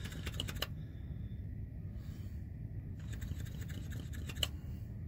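Vacuum brake bleeder drawing brake fluid mixed with air through an opened drum-brake bleeder valve into a clear hose, making a fast crackling tick. The ticking stops about half a second in, then comes back more faintly later on, with one sharper click near the end.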